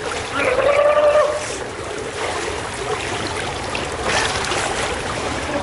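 Water splashing and churning as swimmers kick and stroke through a pool, with a brief pitched call, like a voice, about half a second in.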